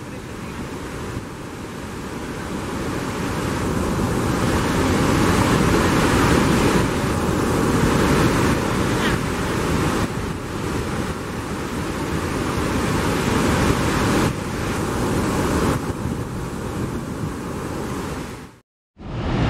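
Steady roar of the Iguaçu Falls, a dense rush of falling water that swells over the first few seconds and then holds. It cuts out abruptly for a moment near the end.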